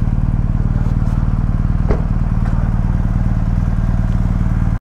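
Motorcycle engine running at a steady speed with an even, fast firing pulse, and a light click about two seconds in.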